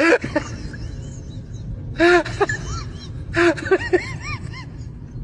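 An animal giving short, high whining cries that rise and fall in pitch, in several bouts a second or two apart.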